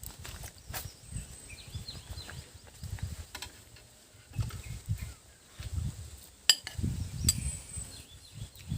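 Eating at a meal: irregular low, muffled handling and chewing noises with a few sharp clicks of dishes or cutlery, the loudest about six and a half seconds in.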